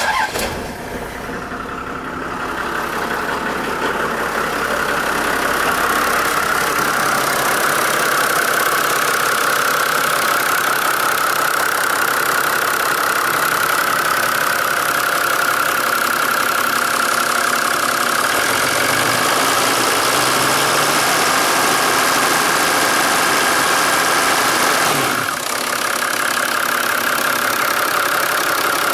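Toyota 1HD-T 4.2-litre turbo-diesel inline-six firing up from cold at the very start, then idling steadily.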